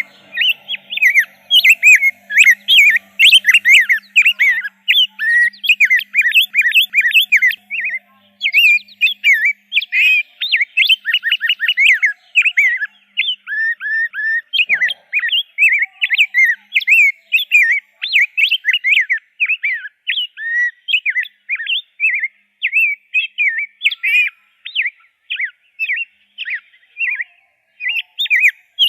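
Rose-breasted grosbeak singing: a continuous run of quick warbled phrases of sliding notes, with a short break about eight seconds in.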